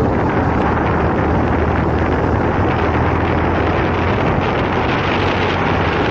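Motorcycle on the move: wind rushing over the bike-mounted camera's microphone, over the steady low note of the engine.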